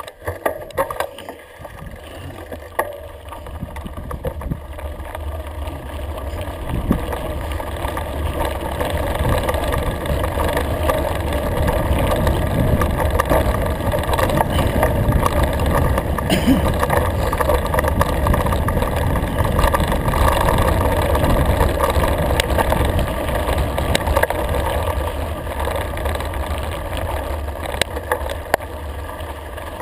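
Mountain bike rolling downhill on a gravel and grass track: wind rushing over the GoPro's microphone with the tyres rumbling and the bike rattling over stones. It grows louder over the first ten seconds or so as speed builds, then holds, with scattered clicks and knocks.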